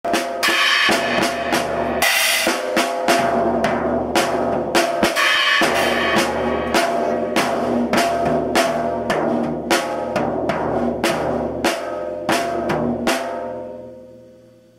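A small child banging on a drum kit, hitting toms and cymbals in an uneven, unsteady rhythm with several cymbal crashes. The playing stops about 13 seconds in and the ringing of the kit fades away.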